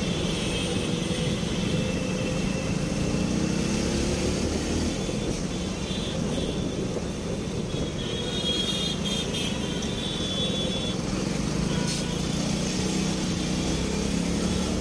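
Small commuter motorcycle engine running while ridden in stop-and-go city traffic, its pitch rising as it speeds up early on and again near the end, with the hum of surrounding traffic.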